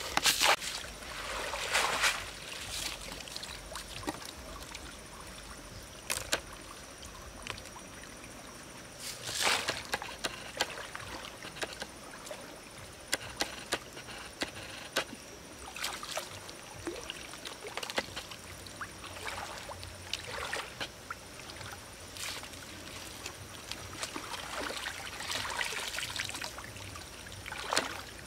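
Shallow river water splashing and trickling as woven bamboo baskets are dipped, scooped through the water and lifted, water running out through the weave. Irregular louder splashes come near the start, about a third of the way in and near the end.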